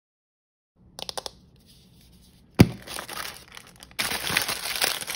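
A few quick clicks, then a single sharp snap about halfway through, then steady crinkling and tearing of thin blind-bag wrapping paper being handled.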